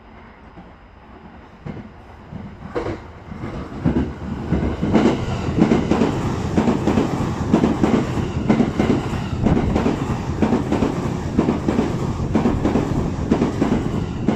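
E657-series limited express train passing through the station at speed: its rumble builds over the first few seconds, then the wheels clatter rhythmically over the rail joints as the cars rush past.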